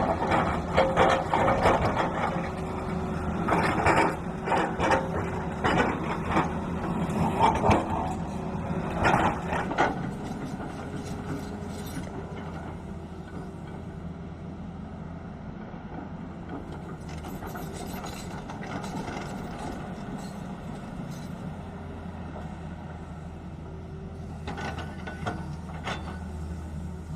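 Excavator's diesel engine running steadily, with loud knocks and clatter through the first ten seconds or so, then settling to a steady run.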